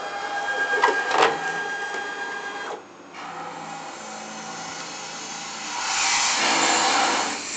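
Small CNC router (MDL-A3-BS) driving its ballscrew axes: a steady machine whine with two sharp knocks about a second in, a sudden break about three seconds in, then a quieter steady run that swells louder for the last second and a half.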